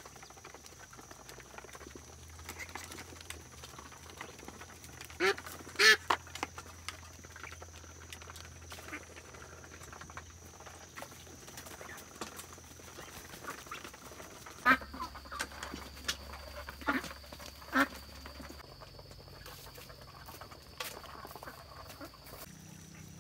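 Muscovy ducks giving short calls: two loud ones about five seconds in and a run of several more later on.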